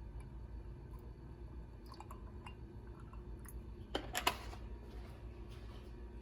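Faint small clicks and taps over a low steady hum, with a short cluster of sharp clicks about four seconds in.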